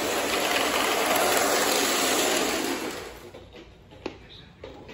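Lionel O-gauge model train running on three-rail track, with a steady rumble of wheels and motor that drops away sharply about three seconds in. A single sharp click follows about a second later.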